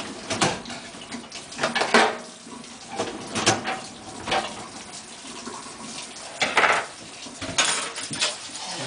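Plates and a metal baking pan clattering as they are loaded into a dishwasher's racks, a string of separate knocks and clinks, with water running from a kitchen tap behind them.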